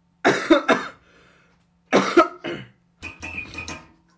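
A person's stifled, cough-like vocal outbursts, three short ones in a row, then a rattly buzzing sound in the last second or so.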